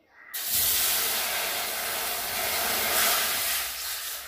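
Water poured into a hot kadai on the stove, hissing and sizzling as it hits the hot metal and turns to steam. The hiss starts suddenly about half a second in and eases off near the end.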